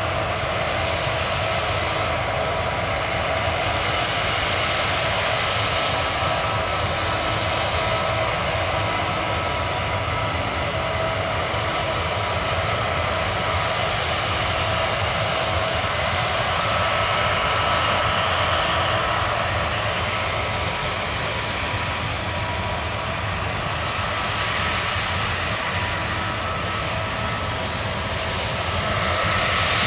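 Case combine harvester running steadily while harvesting barley: a constant low engine rumble with several steady whining tones from its drives, swelling slightly a couple of times.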